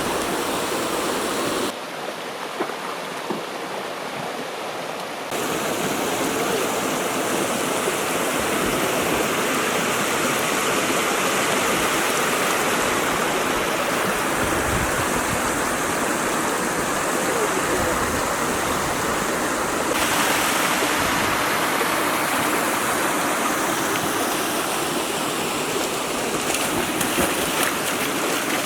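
River water rushing steadily, an even noise with no clear rhythm. It changes abruptly in loudness and tone about 2 s, 5 s and 20 s in.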